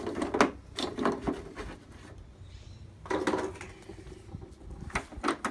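Batteries being taken out of an electronic keyboard's plastic battery compartment: several short clicks and clatters of batteries and plastic, in separate bursts.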